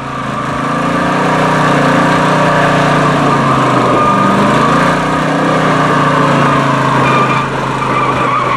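Pontiac GTO's V8 held at high revs in a burnout, the rear tyres spinning and squealing on asphalt. The sound swells over the first second, then holds steady.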